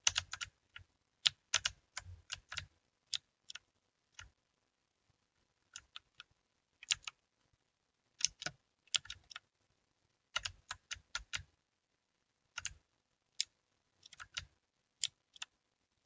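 Keys being pressed on a Redragon mechanical keyboard: sharp clicks in irregular runs of typing, broken by short pauses.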